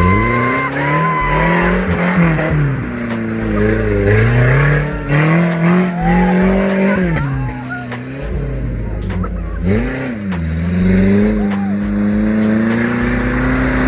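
Off-road vehicle engine revving up and easing off again and again, its pitch climbing and dropping several times, as when working through mud on a trail.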